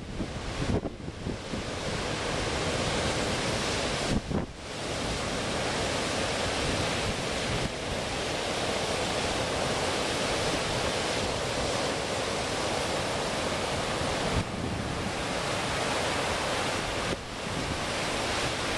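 Ocean surf still running high in the wake of a hurricane, a steady wash of breaking waves, with wind buffeting the microphone. The noise drops briefly about four seconds in and again near the end.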